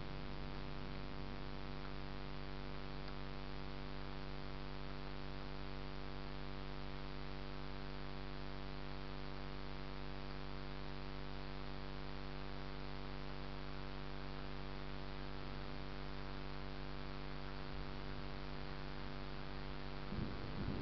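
A steady hum made of several fixed tones over a faint even hiss, with no thunder or rain heard.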